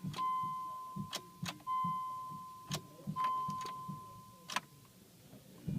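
Car's warning chime with the key in the ignition: three steady beeps of one pitch, each about a second long and fading away, with sharp clicks in between.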